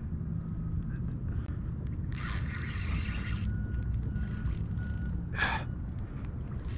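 Spinning reel working against a hooked snook on a bent light rod, with two short hard breaths from the angler about two and five seconds in, over a steady low hum.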